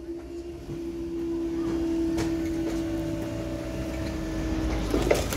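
Level crossing barrier machinery humming steadily while the booms rise after a train has passed. The hum cuts off suddenly about five seconds in, with a few knocks after it.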